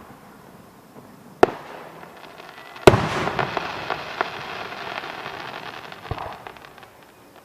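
Aerial fireworks going off: a sharp bang about a second and a half in, then a louder boom about three seconds in followed by several seconds of crackling, and a fainter thump near the end.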